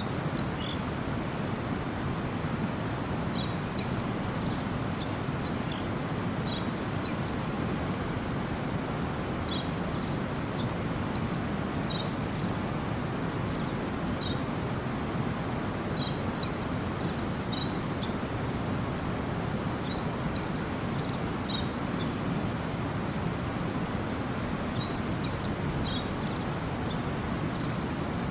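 A small stream babbling steadily, with small birds chirping in short, high bursts that come in clusters every few seconds over the running water.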